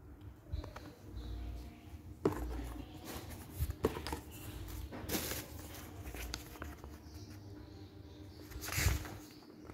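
Cardboard packaging and plastic wrapping handled by hand: irregular rustling and crinkling, with a few sharper crackles and knocks, over a faint steady hum.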